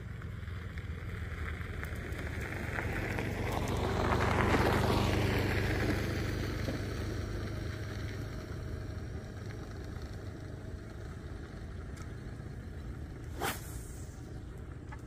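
A motor vehicle's engine running with a steady low hum, while a swell of engine and road noise rises to a peak about four to five seconds in and fades, as of a vehicle passing close by. A sharp click comes near the end.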